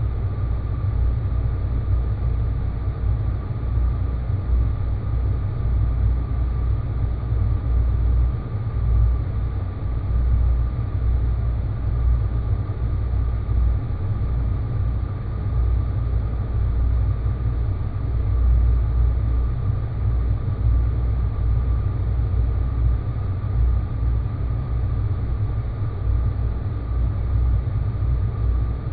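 Sound-design space-planet ambience: a steady deep rumbling drone with a faint, even high tone held above it.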